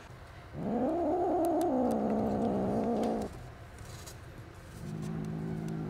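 Angry kittens growling: one long, wavering growl of nearly three seconds that rises and then falls in pitch, then a lower, steady growl starting near the end.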